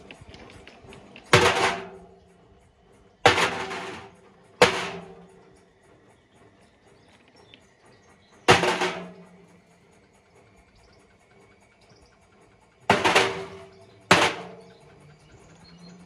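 Stones and bricks tumbling in a Whirlpool front-loading washing machine's drum, crashing against it six times at uneven intervals. Each crash rings briefly.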